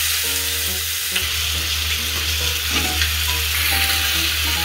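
Chicken, potato and carrot pieces sizzling steadily as they are stir-fried in an aluminium saucepan on a gas stove.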